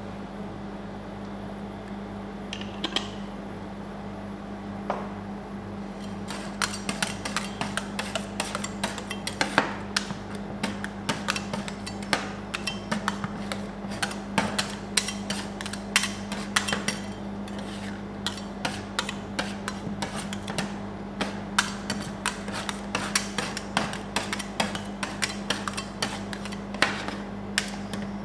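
Two steel spatulas chopping and scraping ice-cream mix on the frozen steel plate of a rolled-ice-cream machine: after a few quiet seconds with an odd click, rapid metal taps and scrapes start about six seconds in and keep going fast, over a steady low hum.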